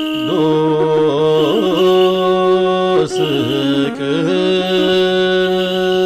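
Closing music: a held drone with a wavering, ornamented melody over it.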